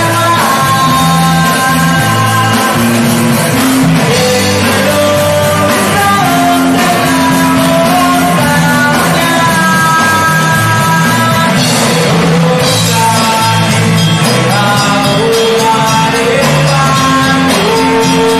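Rock band playing live: electric guitars, bass and drums, with singing over them.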